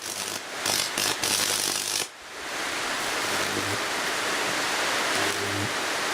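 Electric arc from a microwave oven transformer burning between a screwdriver and earth: a loud hissing, sputtering noise with a mains buzz that comes and goes. The arc breaks off for an instant several times, most sharply about two seconds in.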